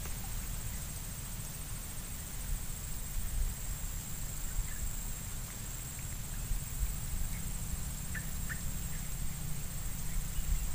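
Outdoor ambience: a low, uneven rumble of wind on the microphone under a steady high-pitched insect drone, with a couple of faint short chirps about eight seconds in.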